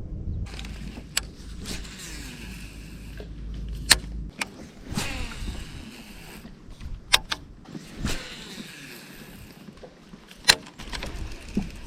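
Fishing reel winding in line with a whirring sound, with a few sharp clicks from the reel.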